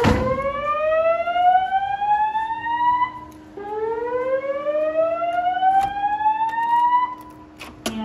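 Wheelock speaker strobes on a Notifier NFS2-640 voice-evacuation system sounding the slow whoop alarm tone: two long rising sweeps, each climbing for about three and a half seconds. A sharp click comes right at the start.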